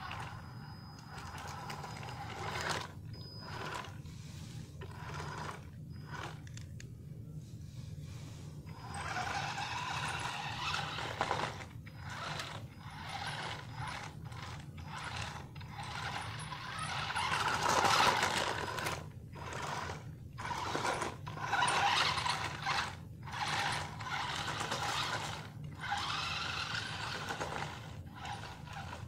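Revolt RC stunt car's small electric drive motors and gearboxes whirring in stop-start spurts as it is driven, with its wheels scraping over stone paving; the spurts get louder in the second half. A steady low hum runs underneath.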